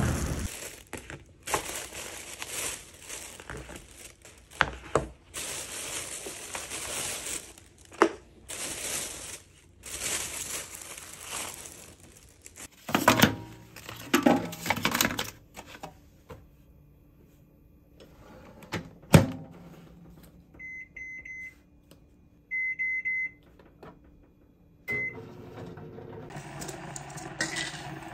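A thin plastic carrier bag rustling and crinkling, then a covered plastic bowl clattering as it is set into a microwave oven. The door shuts with a sharp click, the oven runs with a faint low hum, and it gives short high beeps in two quick runs and then once more.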